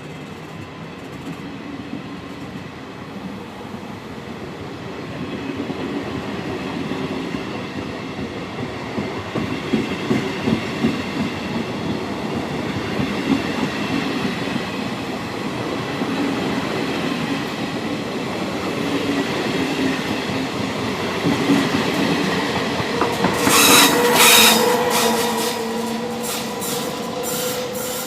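Train running through a railway station, its rumble building up, with the wheels clacking over rail joints. Near the end the wheels squeal loudly on the rails, the loudest moment, and a steady whining tone lingers after.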